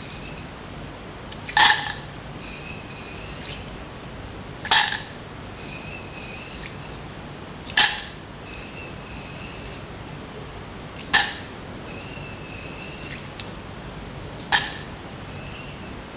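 Batches of soaked mung beans dropped into a stainless steel pan, five times about every three seconds: each a short clatter of beans hitting the metal, with a brief ring from the pan.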